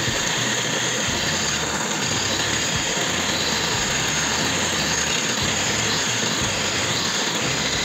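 A homemade belt-driven spindle, used as a makeshift lathe, runs steadily under its motor while a flat file scrapes the spinning steel rod to smooth it.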